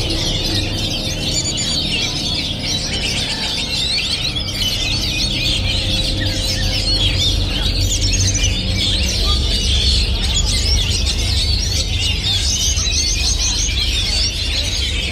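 Oriental magpie-robins singing continuously: a dense run of quick, overlapping whistles and chirps, over a steady low rumble.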